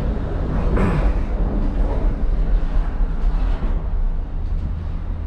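Steady low rumble inside a Disney Skyliner gondola cabin as it moves off through the station turnaround, with a single knock about a second in.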